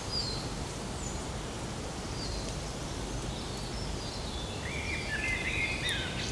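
Small birds chirping off and on, with short high calls that grow more frequent near the end, over a steady low background rumble.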